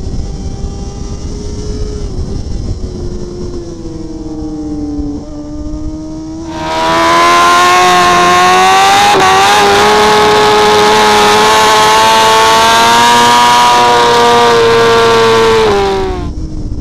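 Onboard sound of a BMW racing superbike's inline-four engine at race pace, with wind rush. The engine note falls as the bike slows. About six and a half seconds in, a much louder, high-revving engine note cuts in and holds fairly steady, then drops back near the end.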